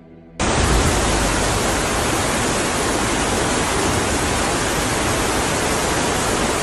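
Heavy rainstorm: a loud, steady rush of torrential rain and floodwater running down a street, cutting in suddenly about half a second in.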